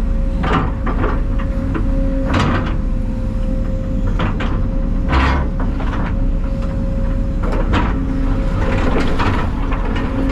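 A heavy diesel engine running steadily with a constant whine over it, broken by irregular clunks and rattles.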